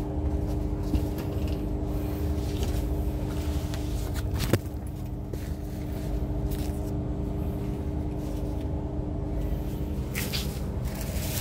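Steady rumble and hum of a train heard inside its sleeper carriage, with one sharp knock about four and a half seconds in.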